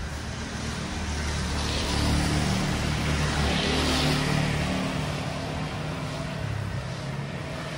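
Motor scooter engine humming as it passes close, loudest two to four seconds in and then fading, with its tyres hissing on the wet street.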